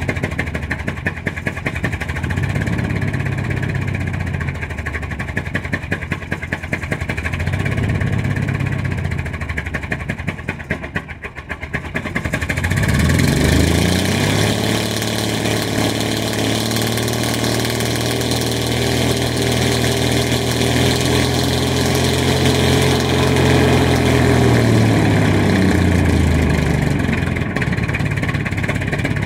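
Toyota engine running rough and unevenly, sagging almost to stalling about eleven seconds in, then revving up to a higher steady speed for about ten seconds before dropping back near the end. The engine barely runs after a new distributor, rotor and cap were fitted, and the owner says this is not how a Toyota should sound.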